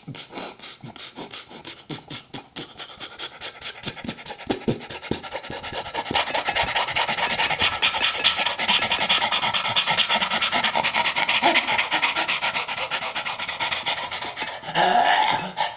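Beatboxing: quick mouth clicks and lip pops that build, about six seconds in, into a fast, dense run of breathy huffs, like rapid panting. A short voiced cry comes near the end.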